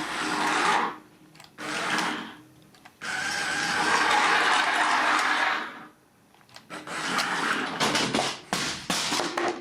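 Small electric drive motor of a remote-control Bumblebee toy car running in four spells as the car is driven about: two short ones in the first two and a half seconds, then two longer ones of nearly three seconds each, with quiet pauses between.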